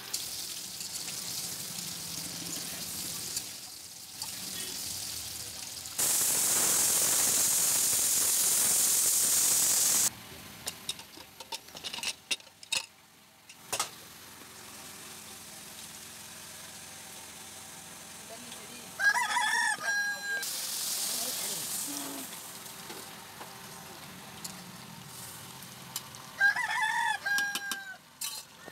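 A rooster crows twice, several seconds apart. Earlier, potatoes sizzle in oil in a wok, and a loud steady hiss runs for about four seconds, starting and stopping abruptly.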